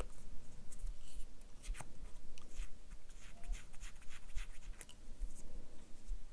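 Narrow paper quilling strip being softened, drawn between the fingers against a metal needle tool to curve it, making a run of short, dry scratches.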